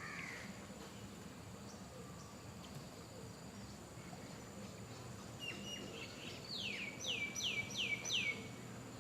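A bird calling: a quick run of four or five sharply falling whistled notes near the end, with a short call at the start. A faint steady high tone runs underneath.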